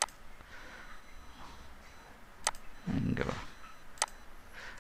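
Three computer mouse clicks, about a second and a half apart, with a short low hum of a voice just before the last one.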